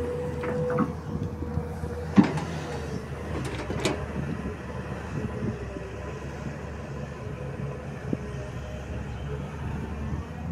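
SANY tracked hydraulic excavator's diesel engine running under load as the arm digs and swings soil, with a steady whine during the first two seconds. Sharp clanks about two and four seconds in, the first the loudest.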